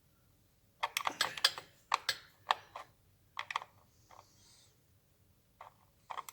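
Irregular sharp metallic clicks and taps of hand tools and small parts being handled, in a quick cluster about a second in, then a few scattered clicks later.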